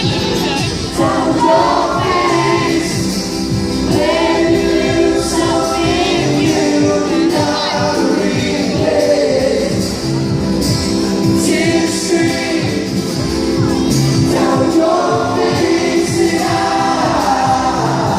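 Live pop vocal group singing in harmony over an amplified backing track with a steady beat.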